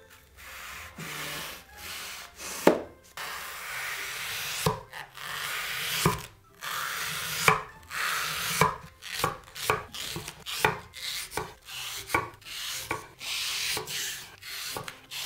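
Kitchen knife cutting a white foam sponge on a wooden cutting board: long rasping slices with a knock each time the blade meets the board. From about halfway on comes a quick run of chops, about two a second, as the strips are diced into small cubes.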